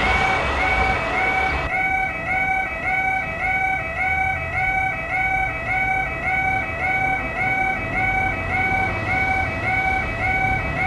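Japanese railroad crossing warning bell sounding its repeated electronic 'kan-kan' chime in a steady rhythm. A rushing noise under it stops about two seconds in.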